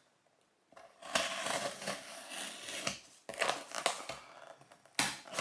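A cardboard parcel being cut open and its wrapping handled: uneven spells of scraping, crinkling and tearing, with a sharper sudden sound about five seconds in.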